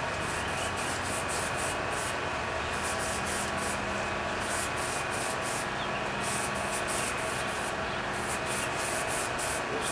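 Aerosol spray paint can hissing in many short, repeated bursts as a light tack coat is sprayed, over the steady whir of shop fans.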